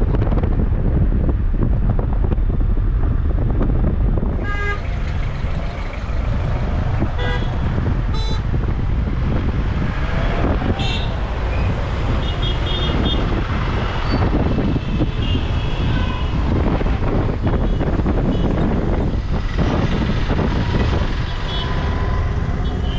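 Road traffic: a steady rumble of vehicle engines and tyres, with several short car horn toots spread through it.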